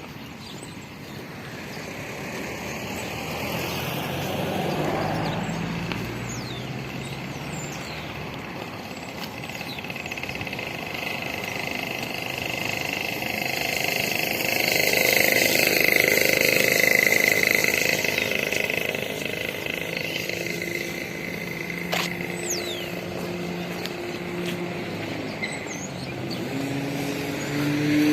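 Road vehicle noise: engines and tyres running steadily, growing louder to a peak about halfway through, then easing off.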